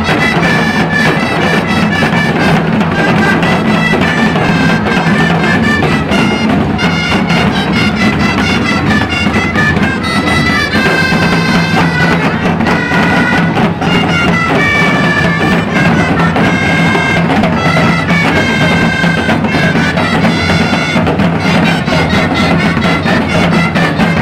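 Gralles, the Catalan double-reed shawms, playing a loud, reedy melody together over timbals (drums) keeping a steady beat.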